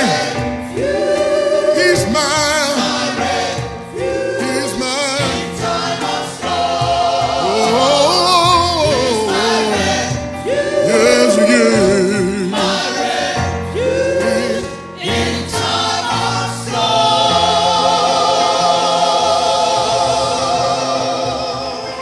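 Gospel choir singing, the voices swooping and shaking with vibrato, then holding a long chord for the last few seconds that fades away at the end.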